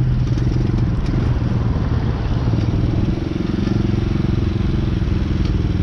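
Small Tao Motor dirt bike engine running while being ridden. The engine speed shifts with the throttle about a second in and settles into a new steady note around three seconds in.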